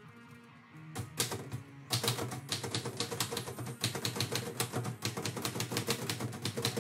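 Manual typewriter being typed on: a rapid, steady string of key strikes, the type bars clacking against the paper on the platen, starting about a second in.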